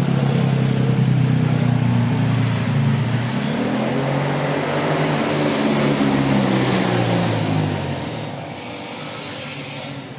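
Engine of a Viar three-wheeled motor tricycle running under way, its pitch dipping and picking up again, then easing off about eight seconds in.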